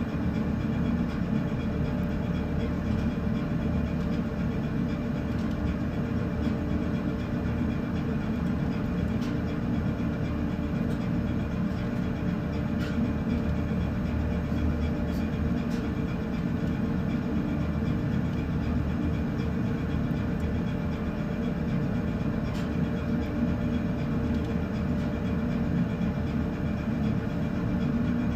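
Steady low drone of a ship's engines and machinery, heard on board, running evenly with a constant hum.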